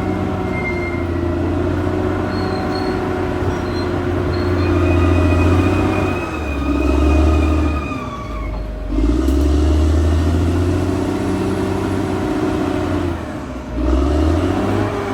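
Caterpillar D6R XL bulldozer's diesel engine running under load, its note sagging and picking back up twice as the blade works, with thin high squeals coming and going over it.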